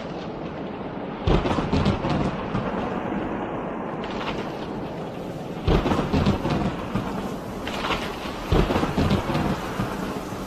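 Thunderstorm: steady rain with three sudden claps of thunder, about a second in, near the middle and again later, each rumbling on for a second or so.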